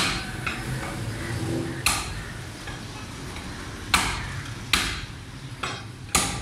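Meat cleaver chopping goat leg on a wooden block: about five sharp chops, one every second or two.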